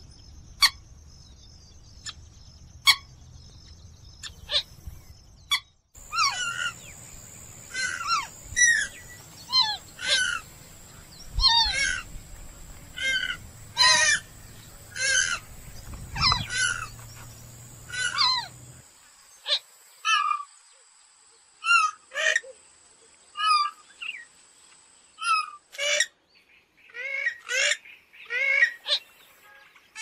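Purple swamphen calls played from a recording: a few short, sharp calls, then a run of descending call notes about once a second over a steady high tone, ending in faster chattering calls. The background changes abruptly twice, where separate recordings are spliced together.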